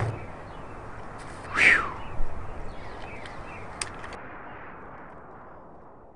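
A steady hiss fading slowly away, with one short cry or whistle falling in pitch about one and a half seconds in and a few light clicks after it.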